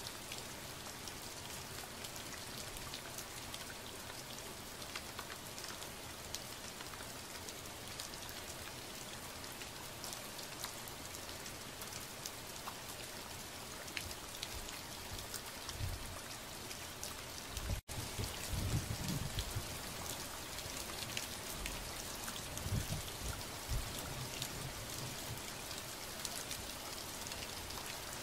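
Steady rain, with individual raindrops ticking through an even hiss. The sound briefly cuts out about two-thirds of the way through, and a few low rumbles come in the second half.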